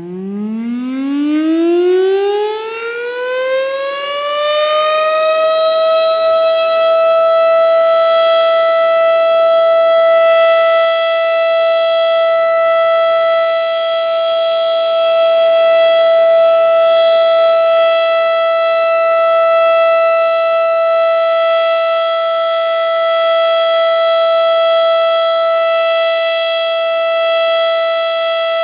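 Federal Signal STH-10 rotating mechanical warning siren winding up on the Alert signal. Its pitch rises over the first five seconds, then it holds one steady, loud tone, swelling and easing slowly in loudness.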